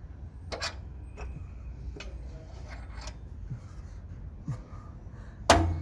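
Scattered metallic clicks and knocks of tools and suspension parts being worked into place on a Suzuki Jimny back axle, with one loud sharp knock near the end.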